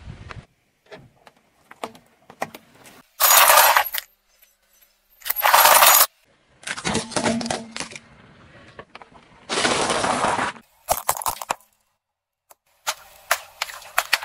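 A rapid series of short crushing and cracking sounds, each cut off abruptly, from assorted objects being crushed under a car tyre.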